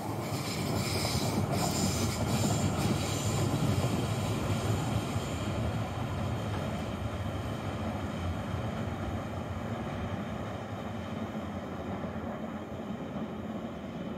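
Electric passenger train running on the rails and moving away along a curve, with a rumble that is loudest a few seconds in and then slowly fades. Faint high wheel tones and clicks come in the first few seconds.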